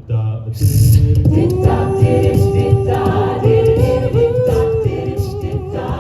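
A cappella vocal group singing a wordless chord intro, starting sharply about half a second in: held, shifting harmonies over a pulsing sung bass and a vocal-percussion beat.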